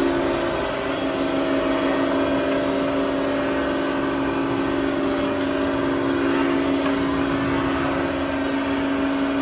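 Universal cylindrical grinder running under power: a steady mechanical hum with a constant low drone and a higher tone above it, unchanging throughout.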